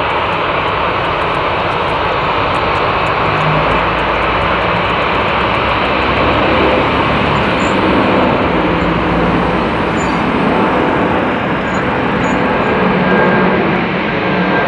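Turbofan engines of a jet airliner running at taxi power as it rolls past close by: a steady, even engine noise.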